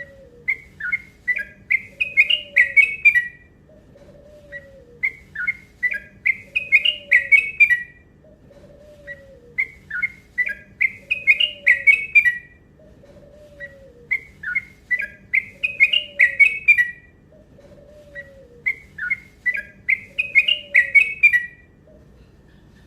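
Yellow-vented bulbul (trucukan) singing five rapid phrases about four and a half seconds apart, each a quick run of short whistled notes that climbs and speeds up toward the end. A faint, low, falling note repeats about every second and a half underneath.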